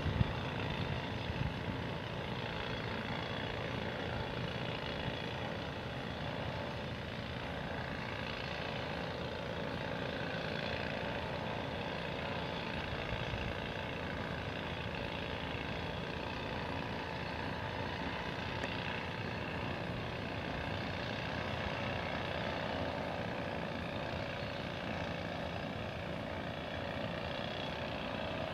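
Steady engine drone with faint humming tones, unchanging throughout.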